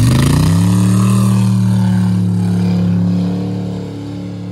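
Ford pickup truck engine revving up and held at high revs as the truck spins its wheels and slides through deep snow, then easing off about three seconds in.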